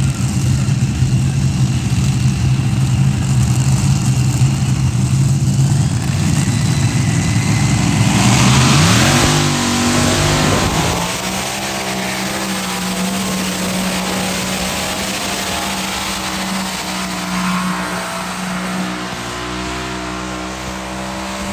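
Modified pulling tractor's engines held at high revs, then revving up sharply about eight seconds in as it launches, then running flat out at a steady higher pitch as it drags the sled down the track.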